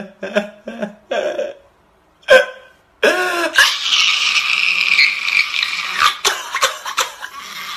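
A man crying loudly: a few short choked sobs that die away, a sharp gasp about two seconds in, then a long, strained wail from about three seconds in that fades near the end.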